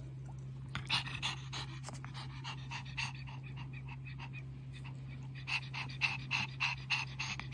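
Pug panting quickly, about four breaths a second, stopping for a couple of seconds midway, over a steady low hum.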